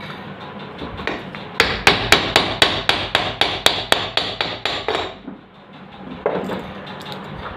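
A hammer striking a fan motor's metal parts in a quick run of about fifteen blows, roughly four a second, starting about one and a half seconds in, as its bearings are changed. A single further knock comes near the end.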